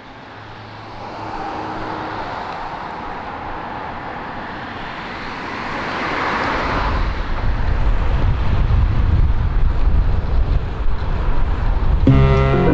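Roadside traffic noise fading in, with a car swelling past about six seconds in, followed by a heavier, uneven low rumble. Music starts near the end.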